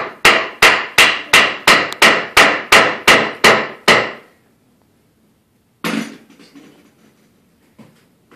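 A hammer striking wood in a fast, even run of about a dozen blows, roughly three a second, each with a short ringing decay. It stops, and then a single heavier knock comes about six seconds in, followed by a few faint knocks.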